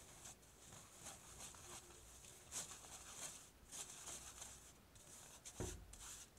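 Faint, soft rustling hiss of a fine stainless-steel mesh sieve being shaken in irregular strokes, sifting cocoa powder, flour and hazelnut powder into a glass bowl, with one dull tap about five and a half seconds in.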